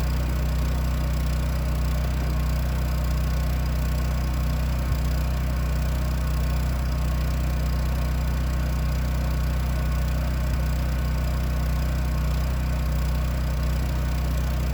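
Portable generator running steadily under load, powering a bulldozer's block heater and battery charger: an even, constant engine hum with strong low tones.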